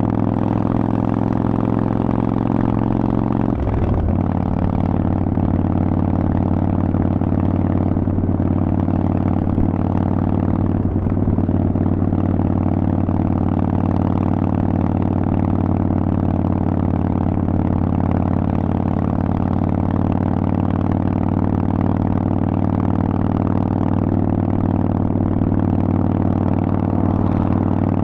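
Harley-Davidson Forty-Eight's 1200 cc air-cooled V-twin running loud through Vance & Hines pipes at a steady pace. The note briefly breaks and settles again about four seconds in.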